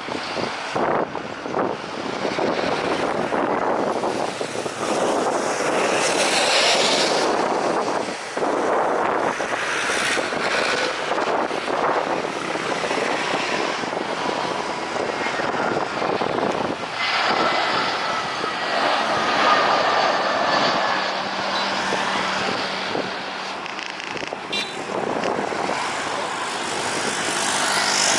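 Jet airliner on approach, its engines making a loud, rushing noise that swells and fades, with a faint whine that slowly falls in pitch near the middle.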